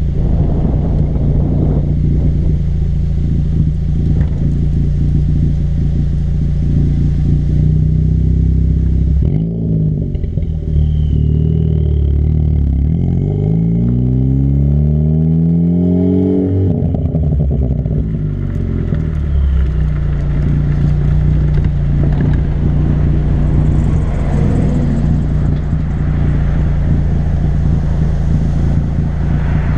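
Turbocharged Ford Focus ST with an MBRP catless turbo-back exhaust, heard close to the tail, driving along. About halfway through, the note drops, then rises steadily for several seconds under hard acceleration and cuts off sharply, before settling back to a steady cruise.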